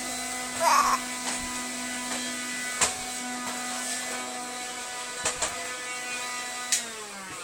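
A small electric motor humming at a steady pitch, with a few sharp clicks, then winding down with a falling pitch near the end.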